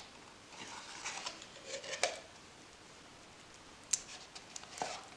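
Silicone spatula scraping thick plain yogurt into a glass mixing bowl: soft wet scraping, with a few light taps of the spatula against the glass about two, four and five seconds in.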